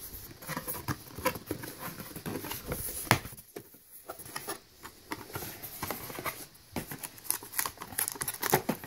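Cardboard packaging being handled: the flaps and inner tray of a product box rustling and scraping, with many small taps and one sharper knock about three seconds in. Near the end the plastic wrap around the device inside is handled.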